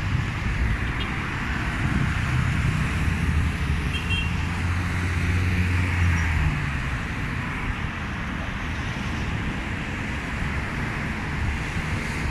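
Street traffic noise: a steady wash of passing road vehicles, with a vehicle engine's low rumble swelling from about two seconds in and dropping away after about six.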